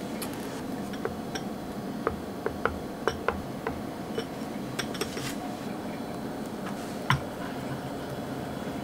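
Small plastic spoons clicking and scraping against glass bowls as food colouring is stirred into a soft cream-cheese filling: irregular light taps, the sharpest about seven seconds in.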